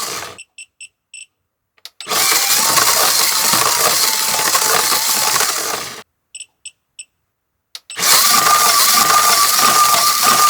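Battery toy train's small electric motor and gears running fast and overdriven on high voltage from a DC power supply: a loud rattling whir with a steady whine. It cuts out twice for about two seconds, each time with three short high beeps and then a click before the whir starts again.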